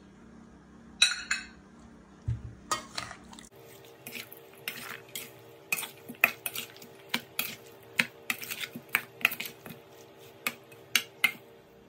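Bone-in pork rib pieces being tossed by hand in a stainless steel mixing bowl, knocking against the metal in quick, irregular clicks and clatters. Near the start there are a few separate clinks of dishes or glass.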